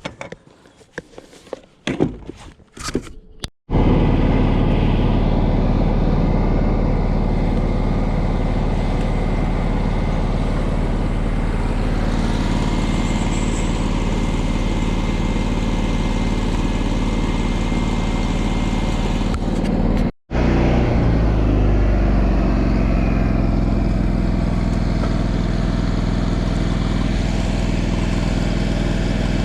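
A few scattered knocks and clatter, then an engine running steadily at an even speed. The sound cuts out for a moment about 20 seconds in, then carries on.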